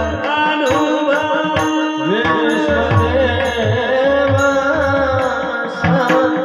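Warkari kirtan music: a long, ornamented sung line with no clear words over steady held drone tones, kept in time by a low drum beat and small hand cymbals. The drum beat drops out briefly in the middle.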